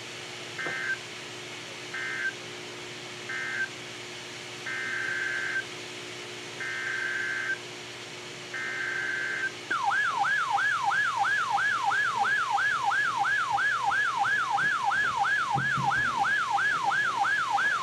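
NOAA Weather Radio SAME alert signalling: three short and then three longer bursts of shrill warbling digital data tones, the end-of-message and header codes that mark a new alert. About ten seconds in, a loud electronic siren-like alarm tone starts, sweeping up and down about four times a second.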